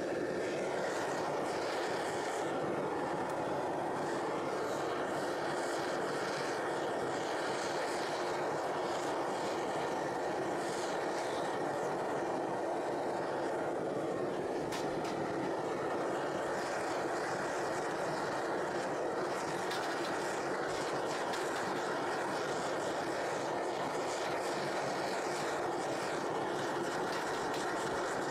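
Metal-melting furnace's burner running with a steady, even rushing noise while it heats a crucible of aluminium scrap to melting.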